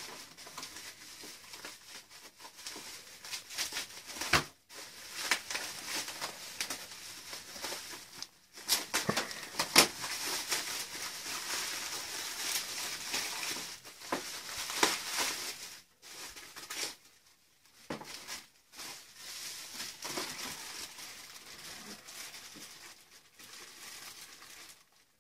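Thin clear plastic bag crinkling and rustling as hands handle and open it, with scattered sharper crackles and taps. It is loudest about ten seconds in, with a few short pauses in the second half.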